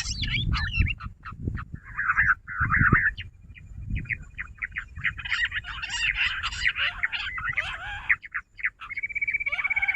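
Jungle bush quail calling: many short chattering notes in quick runs, with low thumps underneath. About nine seconds in, a fast, even trill starts.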